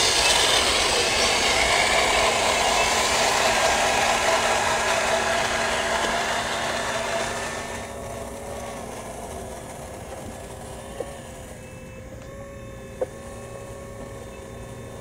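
Small electric gear motors of radio-controlled construction models whirring: a loud grinding whirr fades out over the first half as the model Volvo BM dump truck drives away, leaving a quieter steady whine from the model CAT 5110 excavator's motors. Two sharp clicks come near the end.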